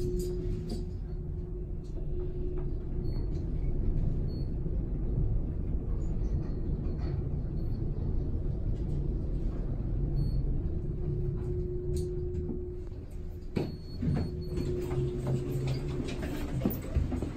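Kone traction elevator car travelling, with a steady low rumble and a faint hum. A sharp click comes near the end as the car stops and its doors slide open.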